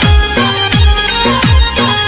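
Rajasthani folk-pop song music with a steady beat; a deep bass drum that drops in pitch hits about every two-thirds of a second under held instrumental tones.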